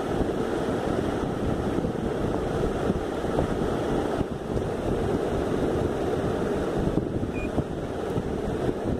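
Steady rushing of air buffeting the microphone, with no distinct strokes or tones.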